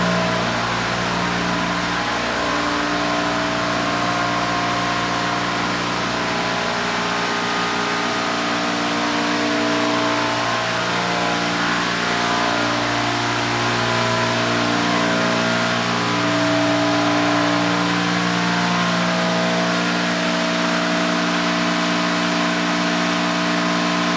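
Sewage pump station pump and its electric motor running steadily: a loud, even hum made of several steady tones that swell and fade slowly.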